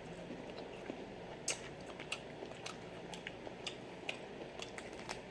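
Faint chewing and lip-smacking while eating corn on the cob: a dozen or so irregular, short, wet clicks and smacks.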